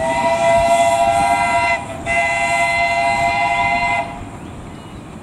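Steam locomotive whistle sounding two blasts, each about two seconds long with a short break between, over the noise of the moving train.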